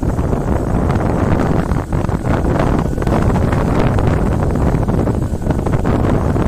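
Wind buffeting a phone's microphone on a moving motorcycle, a loud, fluctuating rush with the ride's vehicle noise underneath.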